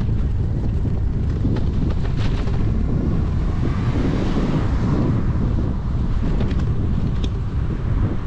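Wind buffeting the microphone of a cyclist's camera while riding, a steady heavy low rumble. About halfway through a rushing noise swells and fades, and there are a few light ticks.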